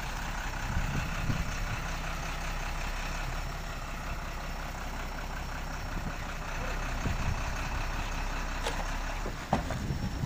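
Diesel engine of a heavily loaded three-axle cargo truck running steadily at low speed as the truck crawls forward, its wheels rolling over loose wooden planks.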